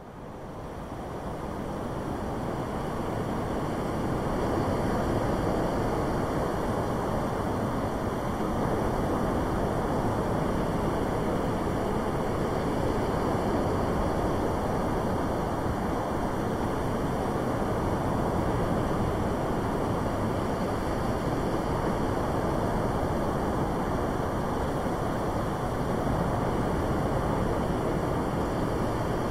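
A steady rushing noise that fades in over the first few seconds and then holds level, with no distinct events in it.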